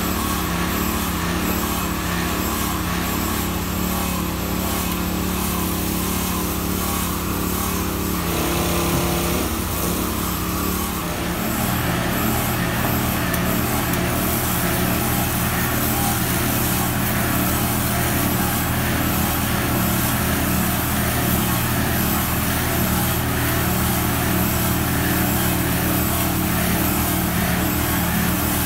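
Lifeboat launch tractor's diesel engine running steadily. Its note changes about eleven seconds in and then holds steady.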